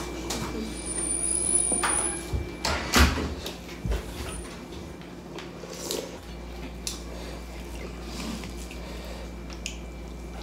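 Scattered small clicks and knocks as food is handled and picked from bowls on a tile floor, the sharpest knock about three seconds in, over a steady low hum.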